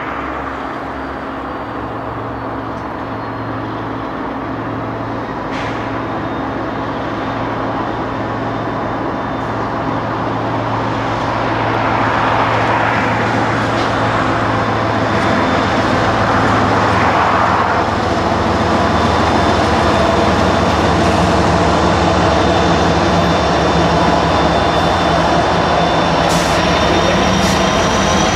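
Diesel locomotive running as it draws nearer, getting gradually louder, with a high whine that rises in pitch over the last few seconds.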